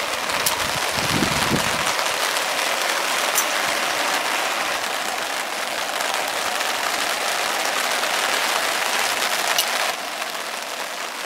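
Steady rain falling on a tarp overhead, a little quieter from about ten seconds in.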